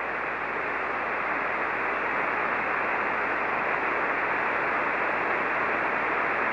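Ham radio transceiver receiving single-sideband on the 75-metre band with no station transmitting: steady band static hissing from the speaker, thin and muffled, with nothing above a narrow voice band.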